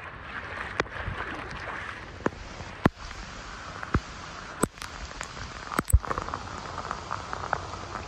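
Heavy tropical-storm rain falling with a steady hiss, broken by frequent sharp taps and several louder knocks.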